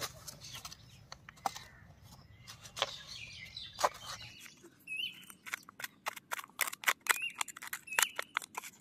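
Short scrapes and knocks of a small flat hand tool digging into dry, stony clay soil, coming faster and more often in the second half. A bird chirps briefly several times.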